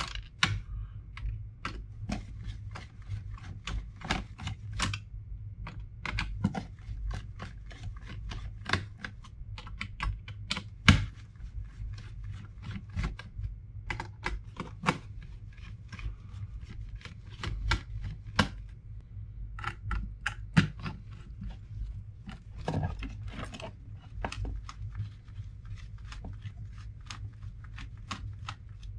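Hand screwdriver backing small screws out of a laptop motherboard: a stream of small, irregular clicks and ticks from the driver tip, the screws and the board being handled, with a few louder knocks, over a low steady hum.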